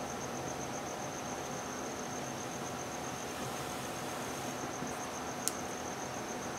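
A cricket chirping in a steady, rapid pulse over a soft background hiss, with a single sharp click about five and a half seconds in.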